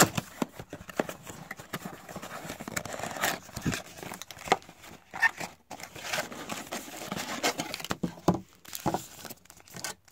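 Cardboard trading-card blaster box being opened by hand and its stack of paper-wrapped card packs pulled out: the card stock and wrappers rustle and scrape, with many short sharp taps.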